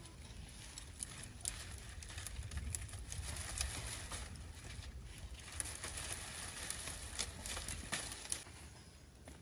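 Dry vine leaves and twigs of a winter melon trellis rustling and crackling as a hand reaches in and tugs a melon loose, with scattered irregular clicks.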